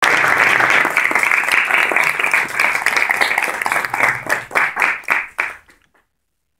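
Audience applauding, the dense clapping thinning to a few scattered claps and dying away just before the end.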